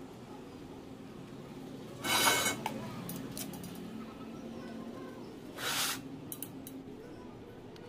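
Two sharp metal clanks with a brief ring, the louder about two seconds in and the second about five and a half seconds in, followed by a few faint ticks, over a steady low hum.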